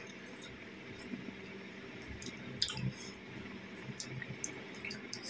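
Faint, wet squishes and small clicks of bare fingers picking through steamed fish and rice on a plate, with quiet chewing. A few louder clicks come around the middle.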